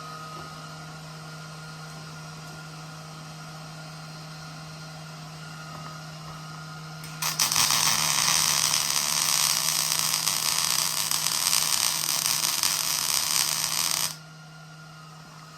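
Arc welding: after a steady low hum, the arc strikes about seven seconds in and runs a crackling, sizzling bead for about seven seconds, then cuts off abruptly as the weld stops.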